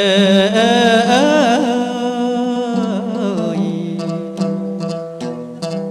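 Traditional Khmer wedding ceremony music: a singer holds a long, wavering melismatic note over a steady low drone. About halfway through, the voice fades out and short plucked string notes take over.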